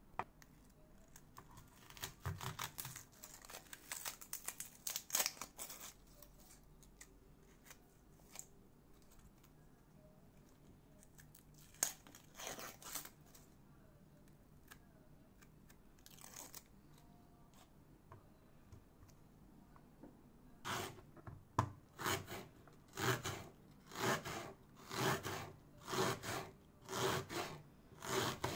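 Serrated kitchen knife slicing through a red onion on a plastic cutting board, a regular run of short cutting strokes, about three every two seconds, starting about two-thirds of the way in. Before that, scattered scraping and rustling of the knife and hands on the board.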